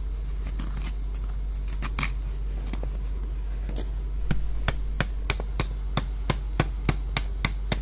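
Knife blade shaving the skin off a large hairy tuber: a few scattered sharp strokes at first, then a steady run of about three quick strokes a second from about halfway.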